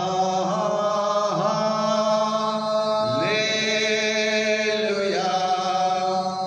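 A man's voice chanting a few slow, long-held notes, moving to a new note about every one and a half to two seconds. It is sung right after the closing blessing of a prayer.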